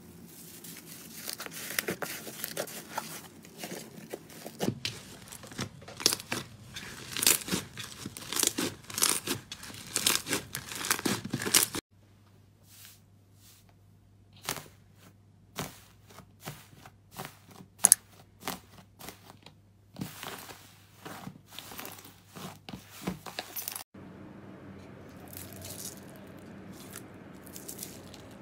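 Slime being stretched, poked and pressed by hand: a dense run of sticky crackling and tearing for about the first twelve seconds, then sparser separate pops with one sharp loud one, then softer scattered crackling near the end.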